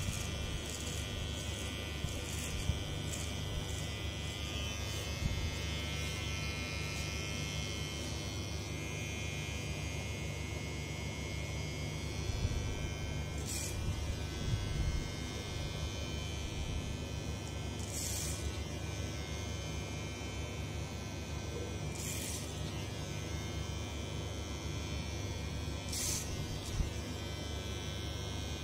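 Cordless electric hair clipper buzzing steadily as it is run through short hair at the back of the head, cutting over a comb.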